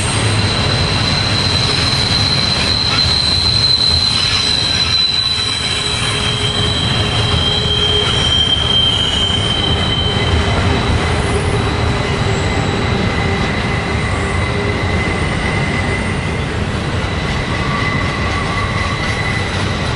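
Double-stack intermodal well cars rolling steadily past on a tight curve. The wheels rumble on the rails under several high, drifting squeal tones that fade in and out: wheel flanges grinding against the rail in the curve.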